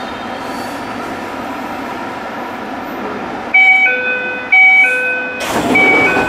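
Steady hum of a stopped Tsukuba Express train. About three and a half seconds in, a loud two-note electronic door chime starts and repeats about once a second, with a sudden rush of noise about two seconds later as the doors shut.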